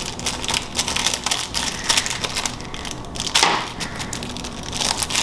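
Plastic packaging being handled and opened: a dense run of crinkling and crackling.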